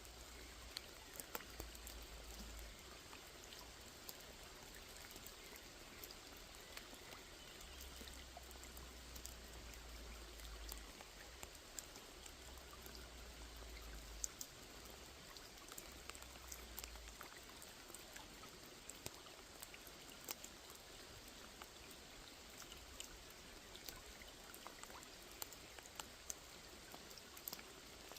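Rain falling on a small pond: a faint, steady hiss of rain with single drops ticking and plinking here and there on the water.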